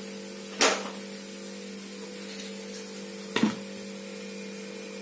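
Two short knocks, about three seconds apart, as a steel mixer-grinder jar loaded with tomatoes is handled and set down on a wooden chopping board, over a steady low hum.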